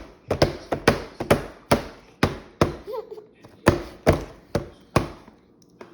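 A quick, uneven series of sharp knocks on a hard surface, about two or three a second, typical of a baby banging on a high chair tray or table during a meal.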